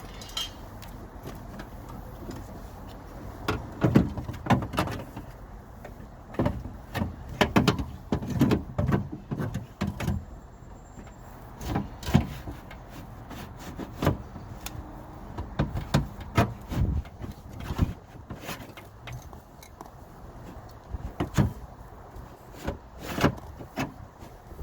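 Irregular clunks, knocks and rattles of metal and plastic parts being worked inside a Range Rover Sport L320's stripped front door. They come in a busy cluster through the middle and a few more near the end.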